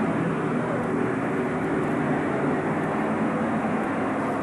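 Super stock pulling tractor's turbocharged diesel engine running flat out under load as it drags the weight sled, a loud, steady drone.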